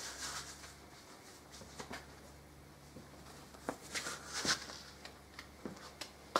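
Light rustling and a few small clicks and knocks of handling, with a denser patch of rustling about four seconds in, over a steady low hum.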